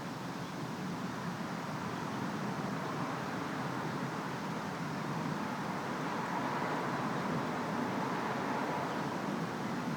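Steady road traffic noise with a vehicle going by, the rush growing a little louder in the second half.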